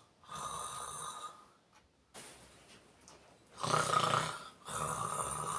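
A man snoring in his sleep: rasping snoring breaths, with a near-silent pause of about two seconds between them and a softer breath following the second.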